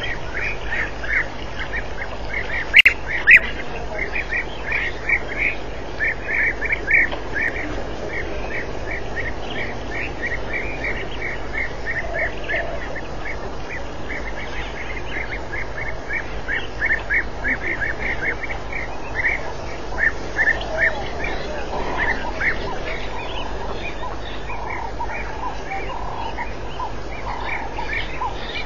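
Continuous run of short, high chirping animal calls, about three a second, with two sharp clicks about three seconds in and lower calls joining in the last third.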